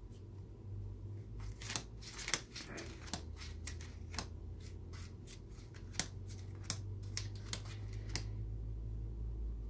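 A calico cat biting and tugging at sheets of printer paper: a string of sharp paper crackles and rustles, a few each second, that stop about eight seconds in. A low steady hum runs underneath.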